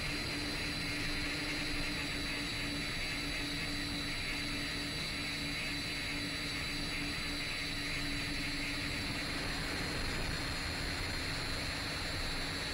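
A 10-inch FPV quadcopter's motors and propellers running steadily in flight: a constant low hum with a thin high whine and hiss over it, dipping slightly in pitch about two thirds of the way through.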